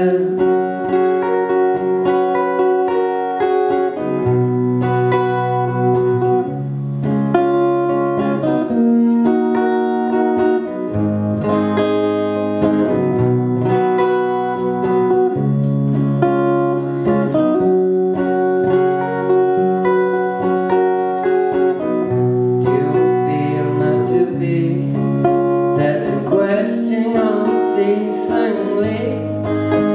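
Acoustic guitar strummed in a steady rhythm, chords ringing and changing every second or two through an instrumental passage of the song.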